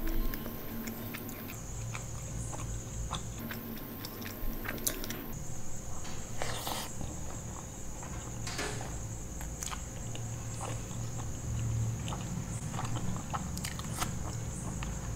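A person chewing a big mouthful of butter naan dipped in paneer masala gravy, with many small mouth clicks and smacks.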